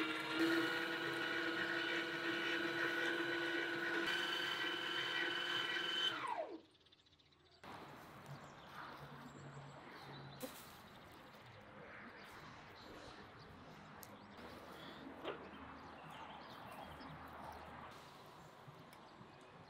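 Electric meat grinder running under load, grinding meat and onion with a steady motor whine, then switched off about six seconds in, its pitch falling as it winds down. After a short near-silence there is faint outdoor ambience with a few small clicks.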